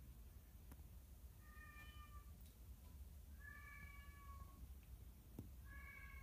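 A cat meowing three times, each meow drawn out for about a second.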